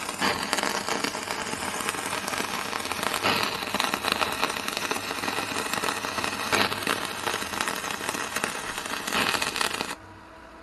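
Stick-welding arc from a Telwin inverter welder: a steady, dense crackle with a few brief louder flare-ups, cutting off suddenly about ten seconds in as the arc is broken.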